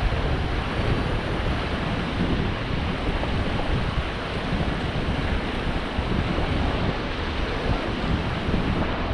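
Rushing river water of the Beas during rafting, a steady roar of turbulent water with wind buffeting the microphone.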